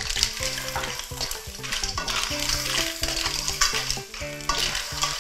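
Undulated surf clams in their shells stir-fried in a hot wok with a splash of water. A spatula turns them while the pan sizzles, the sizzle swelling and dropping with each stroke.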